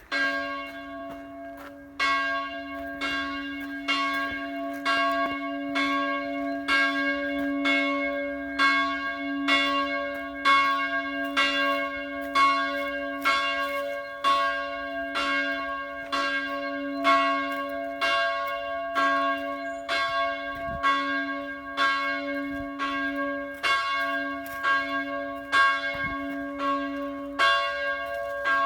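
A church bell tolling steadily, struck a little faster than once a second, its low hum ringing on between the strokes.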